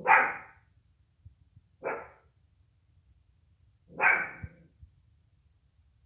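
Yorkshire terrier barking: three sharp single barks about two seconds apart, the middle one shorter and quieter.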